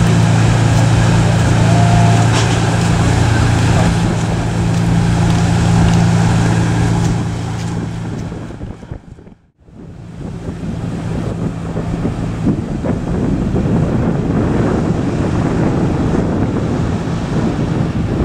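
Fireboat's engines running steadily as it moves along the river, with wind buffeting the microphone. About halfway the sound fades out briefly and comes back as a louder rush of wind and wake water, with the engine hum fainter.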